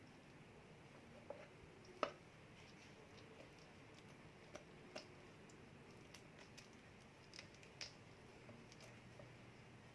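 Near silence with a few faint, scattered clicks and taps, the clearest about two seconds in.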